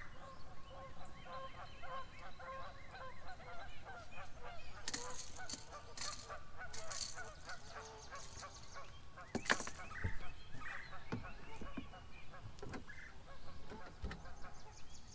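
Geese honking over and over in a rapid run of short calls, with a few sharp clicks or knocks near the middle.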